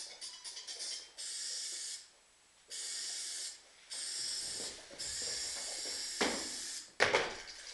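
Aerosol spray-paint can: a brief rattle of the mixing ball, then four bursts of spray hiss that start and stop sharply, the last the longest. A sharp knock near the end.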